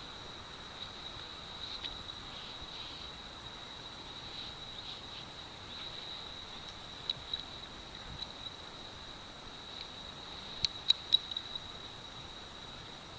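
Cricket singing a steady high-pitched trill, with several sharp clicks: two about halfway through and three in quick succession about three-quarters of the way through.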